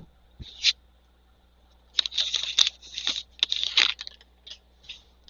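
Plastic wrapper of a trading-card pack crinkling and tearing as it is opened by hand, in short rustling bursts, most of them about two to four seconds in.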